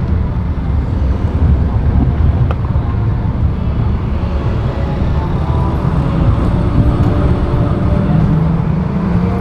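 Road and traffic noise heard from a moving vehicle: a steady deep rumble of tyres and engines. Engine tones from passing traffic rise over it in the second half.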